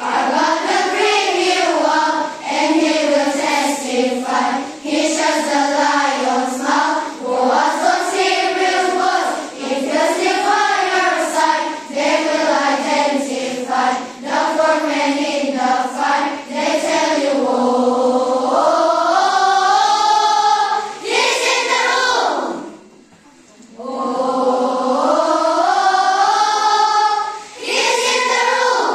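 A large group of children singing together as a choir, with a short pause in the singing about 23 seconds in before they carry on.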